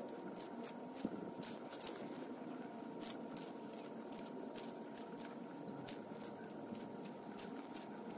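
Sulcata tortoise biting and tearing romaine lettuce leaves: irregular crisp crunching clicks, several a second, over a faint steady hiss.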